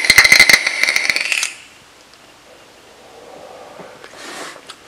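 Box-mod e-cigarette coil firing during a draw: dense crackling and popping with a thin ringing whine as the e-liquid vaporises, stopping after about a second and a half. About three seconds in comes a soft breathy exhale of the vapour.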